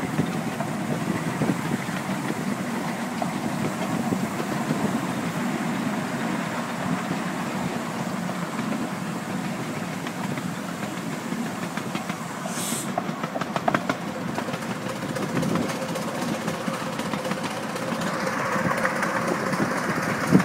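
Steady running noise of a ride behind a miniature 7¼-inch gauge steam locomotive: the rumble and clatter of the wheels on the track. There is a short high hiss about halfway through, a few sharp clicks just after it, and the noise turns brighter near the end as the train rounds a curve.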